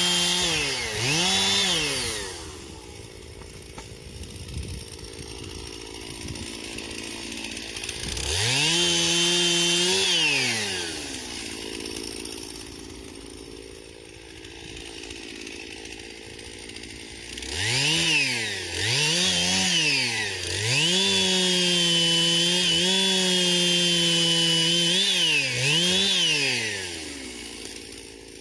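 Two-stroke chainsaw revved to full throttle in bursts and dropping back to idle in between: a short burst with a brief dip at the start, another of about two seconds a third of the way in, then a run of quick blips and a longer held stretch of several seconds near the end.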